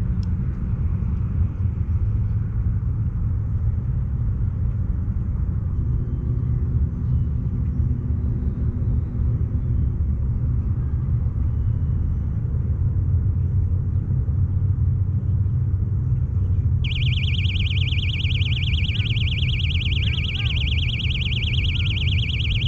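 Steady low rumble of wind buffeting the microphone on an open lakeshore. About seventeen seconds in, a high, fast-pulsing buzz starts suddenly and keeps on.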